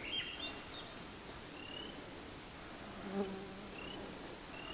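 A flying insect, a fly or bee, buzzes briefly past about three seconds in. Around it is quiet forest background with a few short, high, rising chirps.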